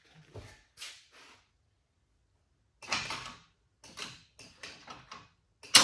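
Homemade steel-plate chute blocker and its linkage clunking and rattling in a series of short jerky knocks, ending in one sharp metallic clang that rings briefly near the end.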